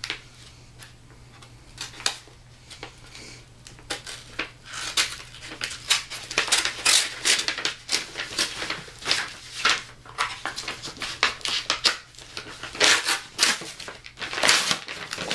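Packing tape being torn and peeled off a heavily taped mail package, with the wrapping crinkling and scraping. The noises come as quick, irregular rasps, starting about two seconds in.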